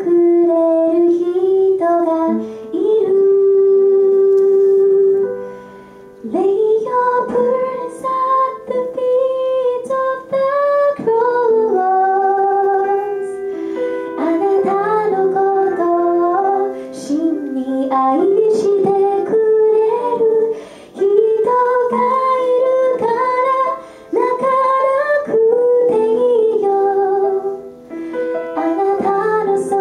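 A gospel vocal group singing a song in harmony, phrase by phrase, with instrumental accompaniment.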